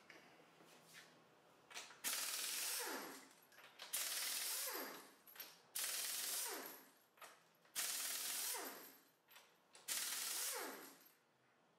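Pneumatic impact wrench spinning lug nuts off a car wheel: five short bursts about two seconds apart, each about a second long and ending in a falling whine as the air motor spins down after the trigger is released.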